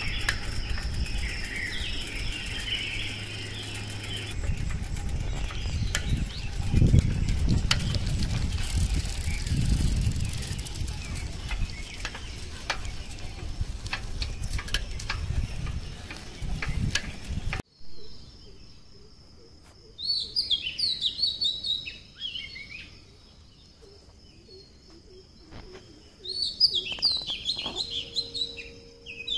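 Dawn birdsong: songbirds chirping and singing in rapid high phrases, clearest in two bursts in the last third, over a steady high tone. Before a sudden break about two-thirds in, a loud low rumbling noise nearly covers the birds.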